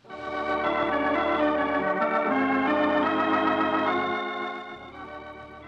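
Organ music bridge of held chords that change twice, then drop about five seconds in to a softer sustained chord, marking a scene change.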